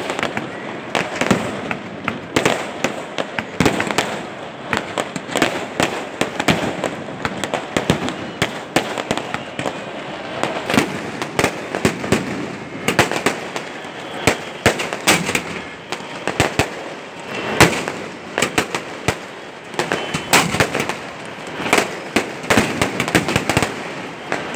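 Fireworks going off continuously: a steady stream of sharp bangs and crackles at irregular intervals over a constant hiss of rockets and burning charges.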